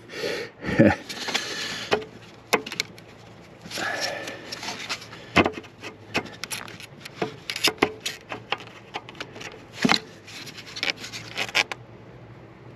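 Hands and tools working at a coolant-hose clamp on the EGR valve in a car's engine bay: a busy run of clicks, knocks and rubbing, scraping sounds that stops about a second before the end.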